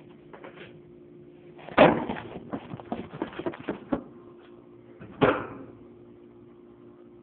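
Hand-tool and handling noise while stripping the ends of a short jumper wire: a loud knock a little under two seconds in, a run of small clicks and rattles, then a second loud knock about five seconds in, over a faint steady hum.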